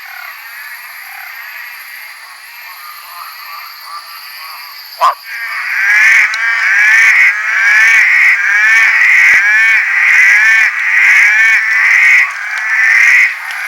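Night chorus of great barred frogs and red-eyed green tree frogs calling, many repeated calls overlapping. About five seconds in the chorus gets much louder and denser, with rapid rising-and-falling notes, and it stops shortly before the end.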